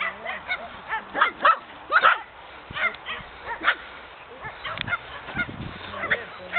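Several dogs barking and yipping together, a rapid, irregular string of short high calls that overlap one another, loudest between about one and two seconds in.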